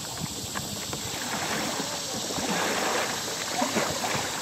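Kayak paddle blades dipping and splashing in river water, a steady watery wash that grows louder in the middle.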